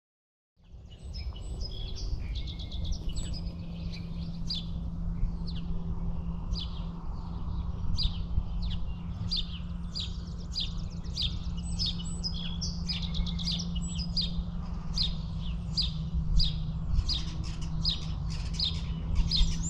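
Songbirds chirping and singing, many short rapid chirps and trills throughout, over a steady low hum and rumble.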